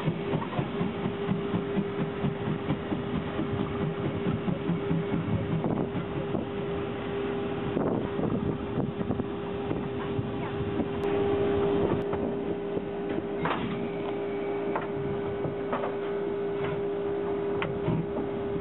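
A narrow-gauge steam locomotive running, with a quick series of exhaust beats in the first few seconds, then a steady running sound with occasional clicks over a constant hum.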